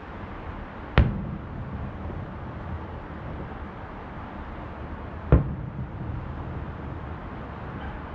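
Two distant aerial firework shells bursting, each a single sharp boom with a short rumbling echo, about four seconds apart.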